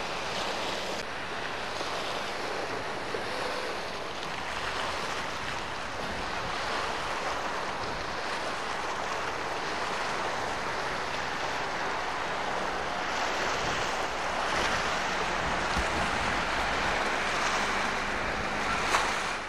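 Steady outdoor rushing of wind and surf, a continuous hiss with no break, growing a little louder in the last few seconds. There is a brief click near the end.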